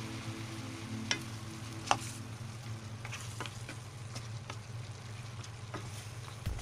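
Goat meat, onions and garlic sizzling in a stainless steel pan while being stirred with a wooden spatula, with scattered clicks and scrapes of the spatula against the pan; the sharpest knock comes about two seconds in.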